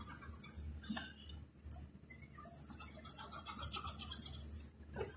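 Pencil scratching across paper in a few long strokes, drawing the straight lines of a frame around a sketch.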